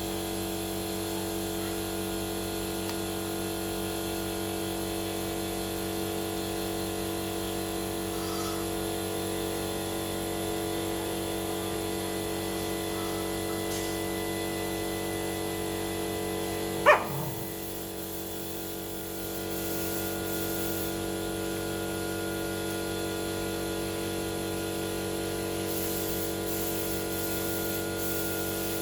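A steady hum of several fixed tones throughout, with a single short, loud puppy yelp about two-thirds of the way through that falls sharply in pitch.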